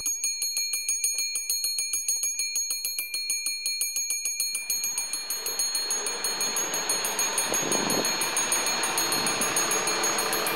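Railway station's electric warning bell ringing in rapid, even strokes, signalling an approaching train. About halfway through, the noise of the arriving train rises beneath the continuing bell.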